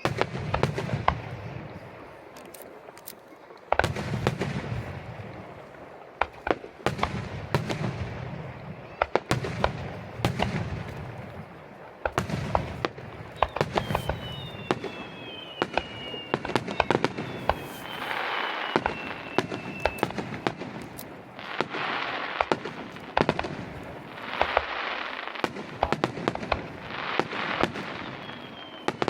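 Aerial fireworks display: shells bursting with deep booms and sharp cracks throughout. Several whistles fall in pitch about halfway through and again near the end, and there are crackling showers of rapid pops in the second half.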